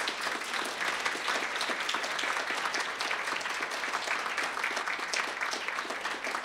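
Audience applauding: many hands clapping in a dense, steady round.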